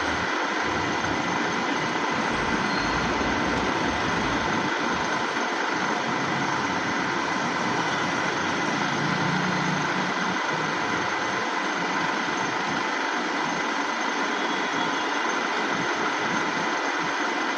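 Dufour 221 universal milling machine running: a steady mechanical hum with a few constant whining tones, no change in speed.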